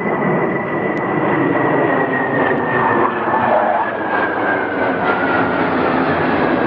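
Four F-16 fighter jets flying overhead in formation, their engines making a loud, steady jet noise. A high turbine whine in the noise slowly falls in pitch as they pass.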